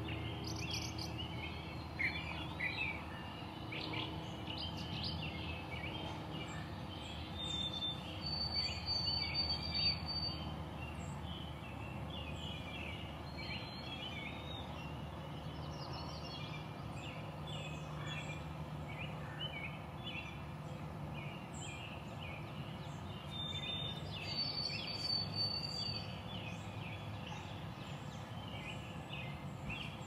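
Wild birds chirping and chattering in the background, a dense run of short high notes from several birds, with a thin high whistle heard twice. A steady low rumble runs underneath.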